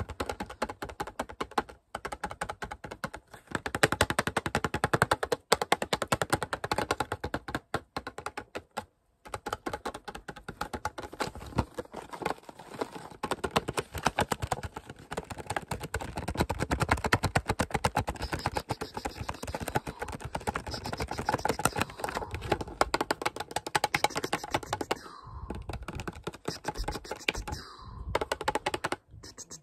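Fingers crinkling and tapping the clear plastic blister packaging of a pencil-and-sharpener pack: a dense run of small crackles and clicks, broken by a few short pauses.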